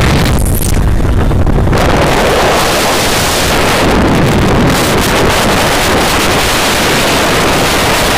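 Loud, steady wind rush buffeting the microphone of a phone carried on a moving motorbike, with road and vehicle noise mixed in.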